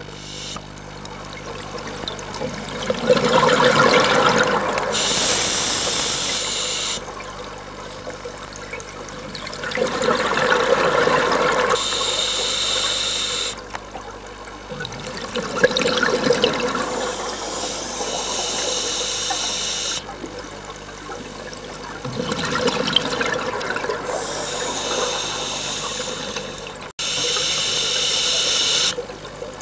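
A scuba diver breathing through a demand regulator underwater, about four breaths: each a burst of bubbling exhaust followed by a high hiss of air, repeating every six or seven seconds.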